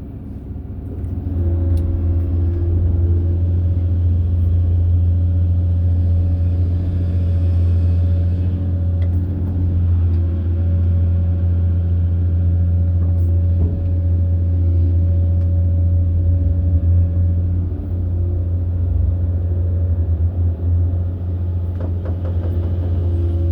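Hitachi 870 large excavator's diesel engine running under working load, a steady deep drone with higher tones that fade out and return in stretches as it works.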